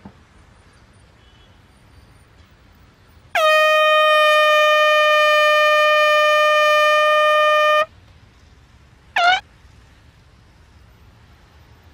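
Handheld canned air horn blown in one long, loud, steady blast of about four and a half seconds, starting a few seconds in, then a second short blast that falls in pitch about a second and a half later.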